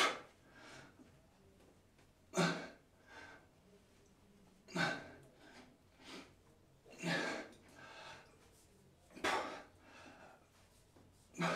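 A man breathing hard through a set of one-arm dumbbell rows: a sharp, loud breath about every two and a half seconds, one with each rep, with softer breaths in between.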